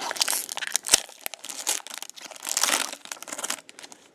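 Crinkling and rustling of a trading-card pack wrapper being handled, in irregular bursts, with a sharp click about a second in.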